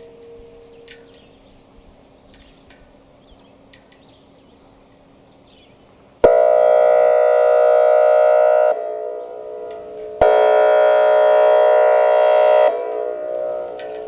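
Whelen WPS-2802 electronic outdoor warning siren sounding two loud, steady, horn-like blasts about two and a half seconds each, the first coming after about six seconds of near-quiet. Each blast starts and stops abruptly and trails off in echo.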